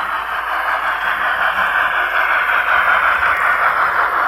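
N-scale Broadway Limited Big Boy model steam locomotive running past under DCC, its onboard sound decoder playing the engine's steam sound as a steady hiss through the small speaker.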